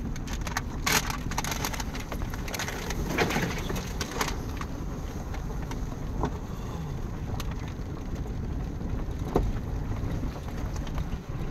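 Inside a vehicle's cab while it is driven slowly over a rough dirt track: a steady low rumble with scattered cracks and knocks, the sharpest about a second in, around three and four seconds in, and near nine and a half seconds.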